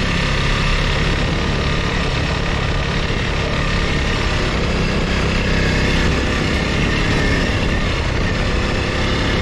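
Honda CRF300L Rally's single-cylinder four-stroke engine running steadily as the dual-sport motorcycle is ridden along a dirt trail, with no big revs.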